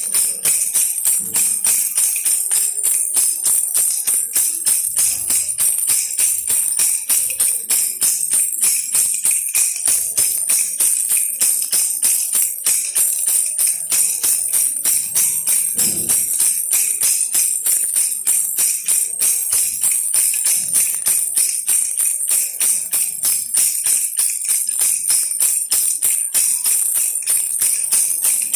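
Baby rattle toy shaken steadily in a quick, even rhythm, giving a continuous high, bright jingle.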